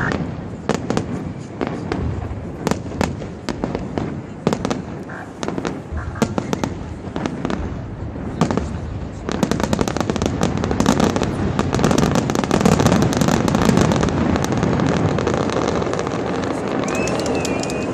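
Fireworks display: aerial shells banging and crackling, the bursts coming thicker about halfway through into a dense, continuous crackling barrage.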